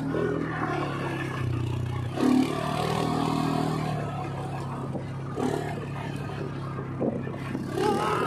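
ATV engine running as the quad bike drives over loose sand, its note rising and falling with the throttle, with a surge a little after two seconds in, and the machine rattling over the ground.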